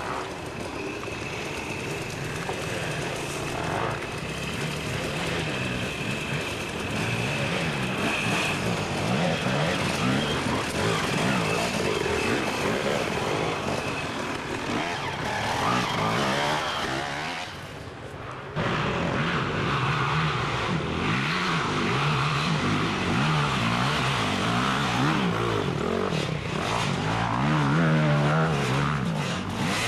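Dirt bike engines revving hard and rising and falling in pitch as riders race through. The sound drops off briefly about 18 seconds in, then cuts back in louder.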